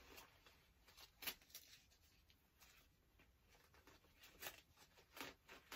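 Near silence, broken by a few faint, brief rustles of fabric being handled: a satin blazer with a panty liner being pressed into its armpit. One comes about a second in and several more near the end.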